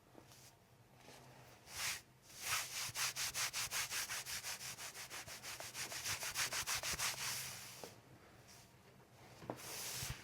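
Hands rubbing briskly over a patient's body in fast, even strokes of about five a second, lasting about five seconds, after one short rub just before.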